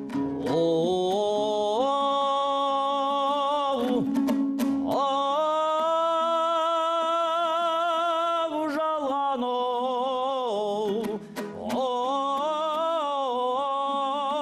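A singer holding long, wavering notes in a Kazakh folk song over a plucked string accompaniment, three long drawn-out phrases with strummed strokes between them.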